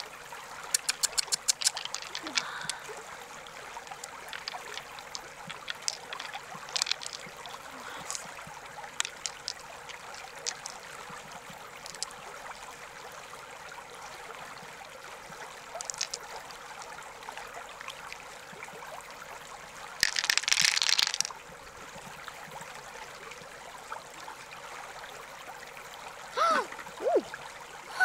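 Steady rush of flowing river water, with scattered sharp clicks and knocks, including a quick run of them near the start. About two-thirds through comes a dense burst of about a second, like a splash. Near the end there are a couple of short pitched sounds that glide up and down.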